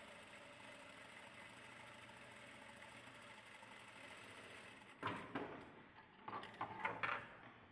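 Industrial sewing machine running steadily as it stitches, then stopping about five seconds in. Loud rustling and knocks of cotton fabric being handled follow.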